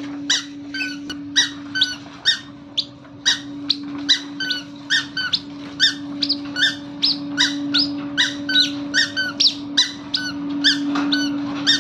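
Toddler's squeaky sandals chirping with each step, a regular series of short squeaks about two to three a second, over a steady low hum.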